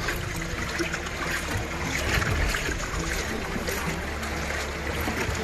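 Floodwater moving and splashing, with a steady low rumble underneath.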